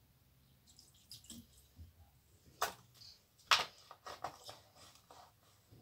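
Scattered soft clicks and squishes of hands working watery slime in a plastic bowl, with two sharper clicks a little under a second apart around the middle.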